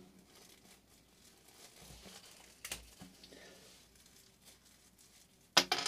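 Soft crinkling and rustling of a thin wrapper being pulled off a small USB Type-A to Type-C adapter, with one sharp click a little under halfway through.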